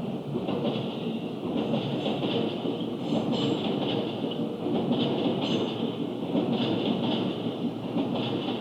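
JR East 205 series electric train passing over a level crossing, its wheels clattering over the rail joints, heard from inside a car.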